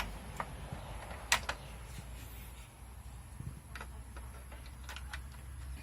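A few sharp clicks and knocks, the loudest just over a second in, from handling a Mi WiFi Repeater 2 and pushing it into a power socket.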